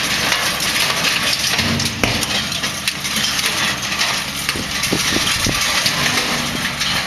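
JCB tractor's engine running steadily as it pulls a Kongskilde Stonebear stone picker over stony ground, with a steady high hiss and scattered clicks over the engine.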